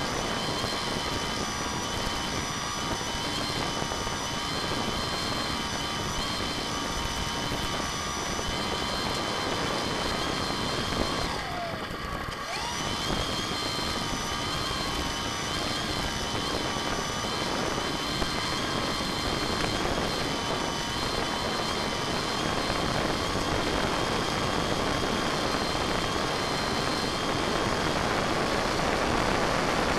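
RC model airplane's motor and propeller running steadily, with a high whine of several held tones over rushing wind noise, heard from the plane's onboard camera. About twelve seconds in the whine briefly drops and glides, as with a throttle dip, then picks back up.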